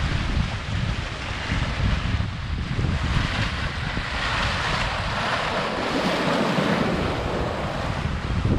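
Wind buffeting the microphone over the rushing, splashing bow wave of a Contessa 26 sailboat driving through open-ocean swell. The hiss of the water swells about halfway through.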